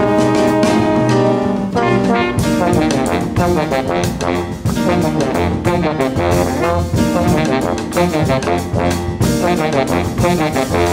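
Live jazz quintet playing: baritone saxophone and bass trombone over piano, double bass and drums. A chord is held for about the first two seconds, then the band moves into a busier passage of quickly changing notes with steady drum strokes.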